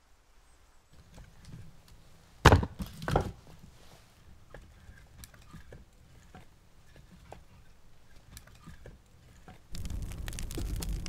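Two heavy thuds about a second apart, then scattered faint knocks and clicks; near the end a dense crackling rush starts suddenly.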